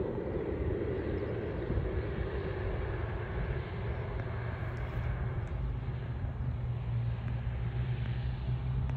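Single Pratt & Whitney PT6A turboprop of a Pilatus PC-12 NG droning as the plane lands and rolls out. Its sound fades away steadily and leaves a low hum and rumble.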